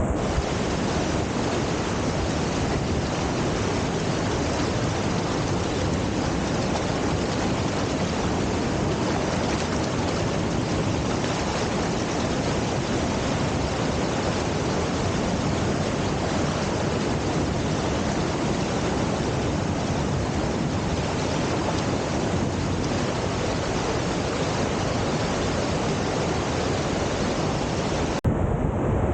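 Krka waterfalls running in heavy flow after heavy rain: a loud, steady rush of falling water, with a brief break near the end.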